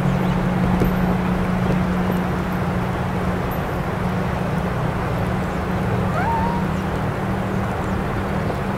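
Steady outdoor ambience during snowfall: an even hiss over a constant low hum, with one short rising chirp about six seconds in.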